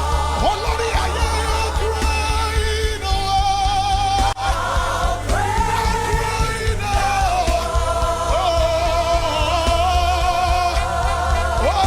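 Live gospel worship music: a lead vocalist sings long held notes with vibrato over a steady band backing with bass.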